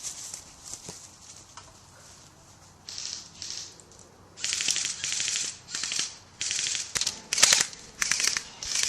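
Airsoft electric guns firing full-auto in short bursts, a fast high-pitched rattle of shots. After a quiet first few seconds, about seven bursts follow each other, each under a second long.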